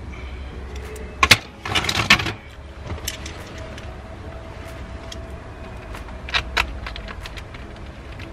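Hard plastic clicks and a short rattle as console trim pieces are handled and fitted during a cup holder replacement. A sharp click comes about a second in, a brief rattle follows, and lighter clicks come later, over a steady low hum.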